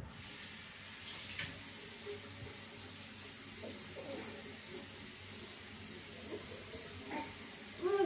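Water running steadily from a tap, starting abruptly.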